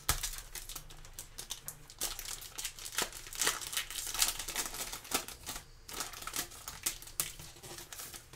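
Foil wrapper of a Select football trading-card pack crinkling as gloved hands work it open and slide the cards out: a dense run of irregular crackles that thins out near the end.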